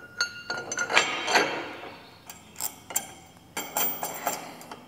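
Irregular metal clinks and clicks, some with a short ring, as a U-bolt with nuts and washers is handled and fitted by hand to a steel canopy mounting bracket on a tractor's rollover bar.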